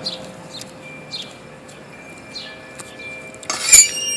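Faint bird chirps repeating at short intervals. About three and a half seconds in, a sudden loud metallic clatter with high ringing tones that carry on.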